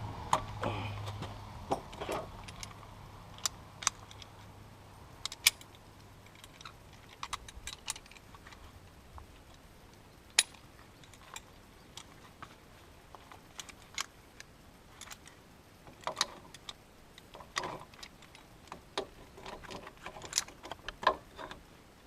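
Scattered metallic clicks and clinks of hand tools and parts being handled and knocked, at irregular intervals and bunching up toward the end. A low steady hum fades out about six seconds in.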